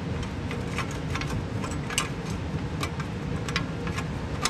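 Irregular sharp metallic clicks and taps of a hand wrench being fitted and shifted around a hydraulic filter under a Kubota BX25 compact tractor, over a steady low background rumble.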